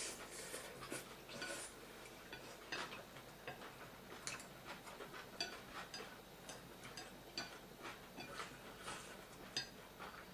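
Mukbang eating sounds: chewing with irregular wet mouth clicks and smacks, several a second and uneven.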